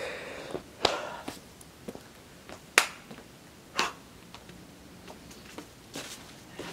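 Irregular sharp clicks and crunches of footsteps on dry leaf litter and rock, the loudest about a second in, near three seconds and near four seconds.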